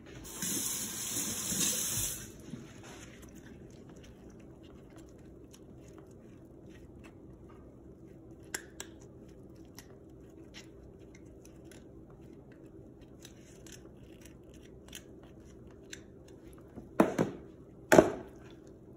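Gloved hands handling and cutting a whole yellowtail snapper in a plastic tub: a hiss lasting about two seconds near the start, then faint wet clicks and ticks, and two louder knocks about a second apart near the end.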